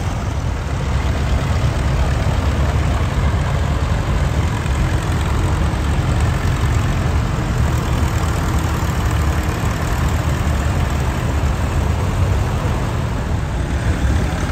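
Several vintage tractor engines running at low speed as the tractors pass slowly in a line, a steady low rumble.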